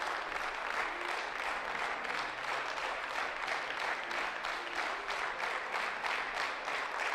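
Spectators applauding steadily: dense, even clapping, with faint voices underneath.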